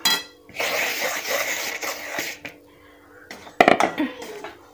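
Metal spatula scraping and stirring dry semolina around a metal kadhai as it is roasted in a little oil: a clink, then a long gritty scrape lasting about two seconds, then a few sharp knocks of utensil on pan about three and a half seconds in.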